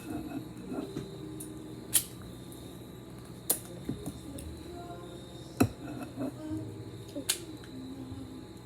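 A ladle clinking against kitchenware four times, a second and a half to two seconds apart, as cupcake batter is ladled into the cups of a pan.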